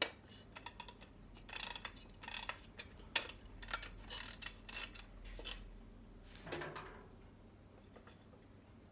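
Faint, irregular clicks and scrapes of an early tin alarm clock being handled and fiddled with at its back, its metal case and mechanism clicking.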